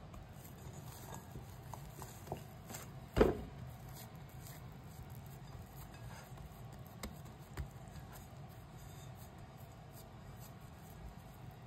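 Hand pressing and patting a soft ball of dough in a glass bowl: a few faint soft knocks, with one louder thump about three seconds in, over a low steady hum.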